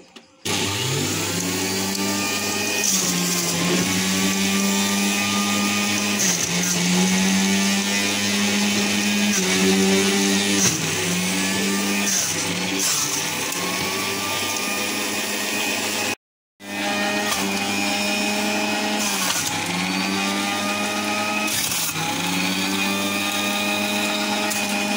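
Electric juicer motor running with a steady high hum that sags in pitch every few seconds as pieces of pomelo and beetroot are pushed into the feed chute, then recovers. The sound cuts out for an instant about sixteen seconds in and picks up again.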